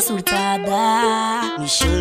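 Sped-up Brazilian funk music: a melodic passage with a wavering high line and no words, with a deep bass note coming in near the end.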